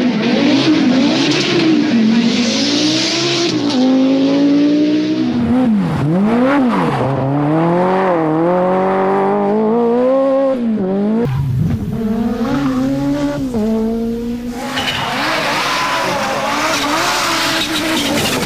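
Group B rally car engines at full race pace, the note climbing and dropping over and over through gear changes and lifts, with a hiss of tyres and loose surface underneath. The sound changes abruptly twice as different cars and runs are cut together.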